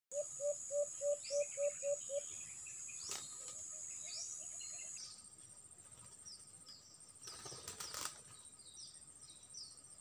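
Wild forest birds calling: a quick series of about eight low hooting notes, then scattered high, short, downward-sliding chirps, over a steady high-pitched hum. Two brief rustles come about three seconds in and near eight seconds.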